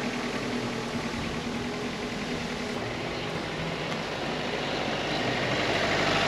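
The 2014 Renault Kangoo's 1.5 turbo-diesel engine running, heard from inside the cab, a steady hum that grows louder over the last couple of seconds.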